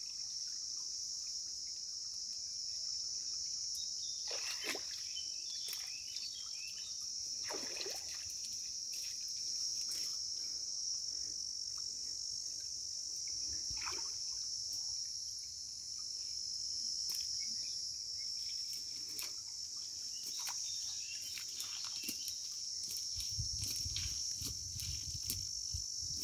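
Steady, high-pitched chorus of insects, with a few short clicks and rustles scattered through it and a low rumble near the end.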